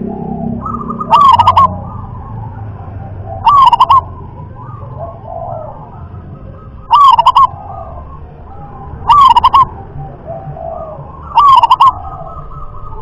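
Zebra dove (perkutut) cooing: five loud, short phrases of a few quick staccato notes each, spaced about two to three seconds apart.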